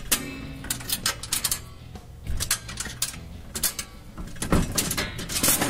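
Coins being fed into a toy vending machine and its metal knob mechanism being worked, heard as a string of sharp metallic clicks and clatters.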